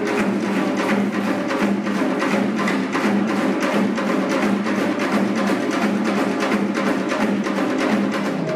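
Fast, steady drumming on Korean barrel drums, with sharp stick strokes landing several times a second over a constant low drum tone.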